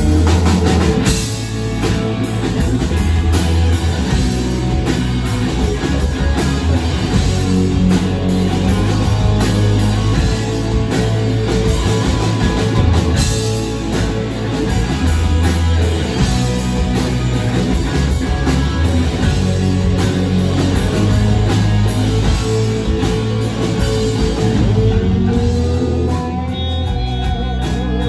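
Live rock band playing loud: distorted electric guitars, electric bass and a drum kit, continuous and driving.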